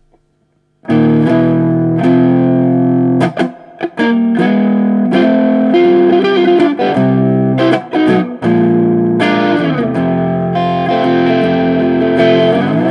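Electric guitar playing sustained overdriven chords through an Ibanez TS9 Tube Screamer pedal, starting about a second in. The chords have a few short breaks between them, and some chord changes slide in pitch.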